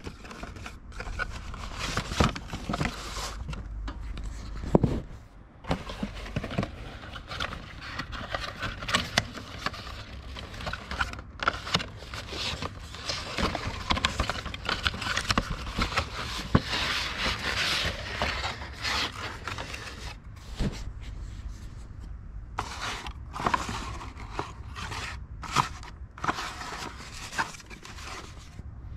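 Cardboard packaging handled by hand: box flaps opened and an inner cardboard tray slid out and unfolded, with irregular rustling and scraping and small knocks.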